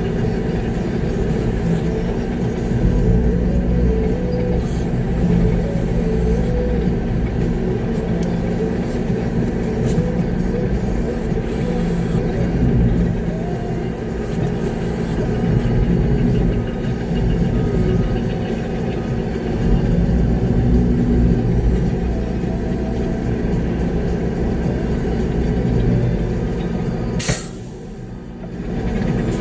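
Concrete mixer truck's diesel engine running steadily, heard from inside the cab. Near the end a single sharp click is followed by a brief dip in the engine sound before it picks back up.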